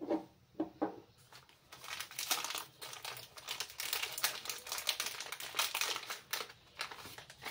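Packaging being handled and crinkled while unwrapping, a dense crackle that starts about two seconds in after a few light taps.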